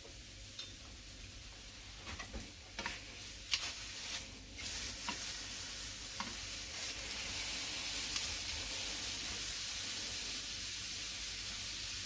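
Moose steaks sizzling as they sear to a crust in a nonstick frying pan. A few sharp clicks of metal tongs turning the meat come a few seconds in, after which the sizzle grows louder.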